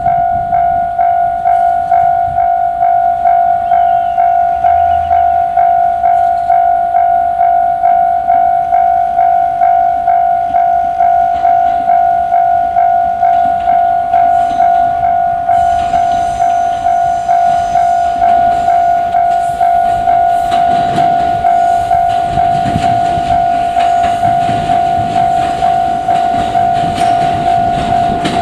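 Japanese level-crossing warning bell ringing steadily, a single electronic tone struck about twice a second. From about halfway through, a JR Kyushu 787 series electric limited-express train passes over the crossing, its wheels rushing and clattering over the rail joints under the bell.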